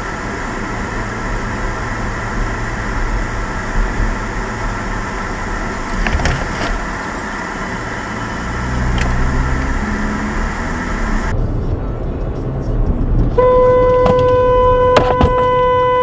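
Steady car cabin noise of engine and tyres from inside a moving car. Near the end a car horn is held in one steady blast of about three seconds, with a couple of sharp clicks during it.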